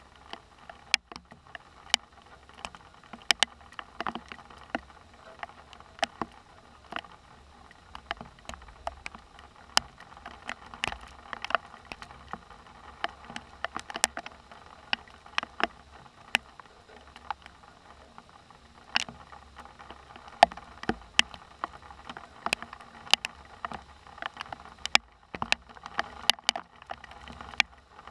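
Raindrops during a thunderstorm ticking irregularly on a hard surface close to the microphone, a few sharp ticks a second, over a faint steady hiss of rain.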